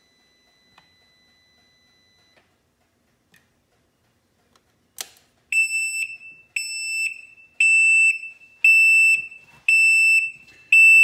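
Can-Am Spyder RT's warning beeper sounding a regular series of loud beeps, about one a second and each about half a second long, starting just after a single click about five seconds in. This is the alert that the parking brake has not engaged with the key off.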